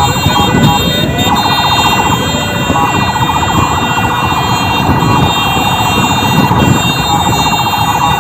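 Ambulance siren sounding, its pitch warbling rapidly with occasional upward glides, over a low vehicle rumble.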